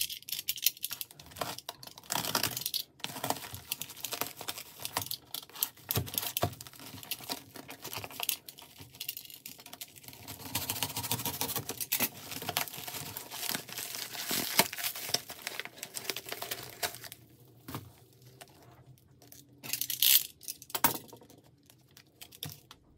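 Packaging being torn open and crumpled by hand: a dense run of crinkling and tearing with many sharp clicks and knocks, dying down after about seventeen seconds, then one short burst of crinkling near twenty seconds.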